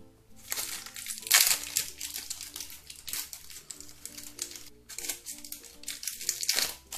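Thin plastic wrapping crinkling in several short bursts as it is handled and peeled off a store-bought slime ball, over background music.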